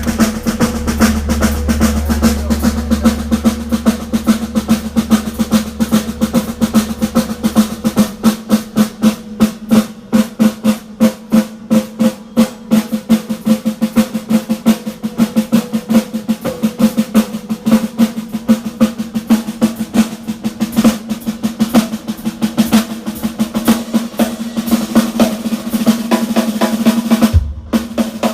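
Drum kit played hard in a live set: fast snare rolls and rapid, evenly repeated strokes. A low bass sound runs under the first several seconds and drops away about eight seconds in, leaving the drums mostly alone. The drums stop briefly just before the end, then carry on.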